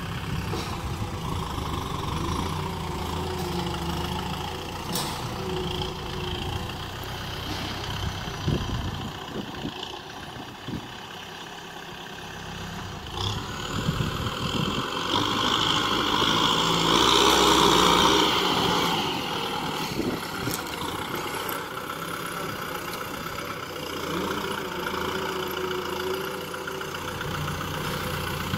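Kubota M6040SU tractor's diesel engine running as its front blade pushes loose soil, with a few short knocks; the engine grows louder for a few seconds past the middle, then settles back.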